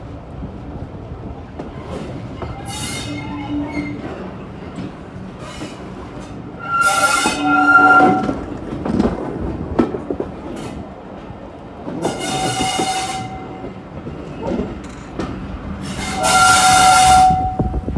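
A Class 08 diesel shunter running, its engine a steady rumble. Four loud, shrill blasts of a second or two each are spread through, each holding a couple of steady tones.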